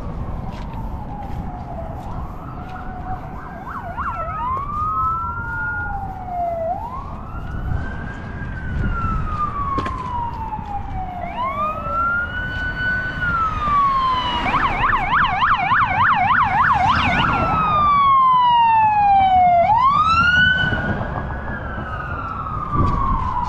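Emergency vehicle siren wailing. Each tone rises quickly and falls slowly over about three seconds, over and over. Midway it switches for a few seconds to a fast warbling yelp, its loudest part, then goes back to the wail. Low traffic rumble runs underneath.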